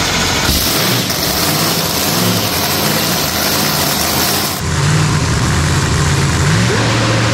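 Supercharged Pro Mod drag car engine running loudly at idle during its first warm-up on a hub dyno. The sound changes abruptly about four and a half seconds in, to a steady idle, and near the end the revs rise and fall in quick throttle blips.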